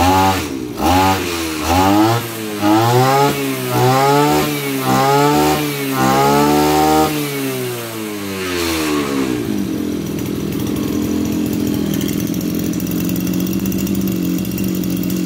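Maruyama BigM KC26 26cc brush cutter engine revved in about six quick throttle blips, its pitch rising and falling each time. It then drops back to a steady idle for the second half.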